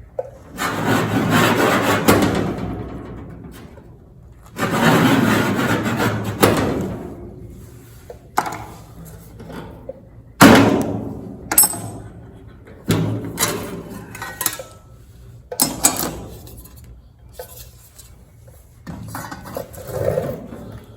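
Handwork on a steel cowl patch panel: two long scraping strokes as a cut line is scribed into the sheet metal, then several sharp metallic knocks, the loudest about ten seconds in with a brief ring.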